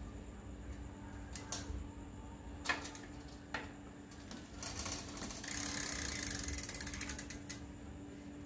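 Bicycle rear hub pawls ratcheting in a rapid, dense ticking as the rear wheel spins freely. Before it come a few separate sharp clicks from the drivetrain.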